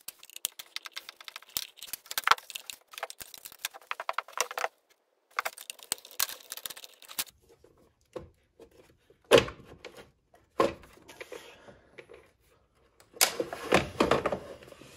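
Rapid, fine ticking from a hand driver turning out the T30 Torx screws around a snowmobile's pull-start housing, in two long runs. Then come a couple of knocks and a louder plastic clatter and scrape near the end as the pull-start housing is lifted off.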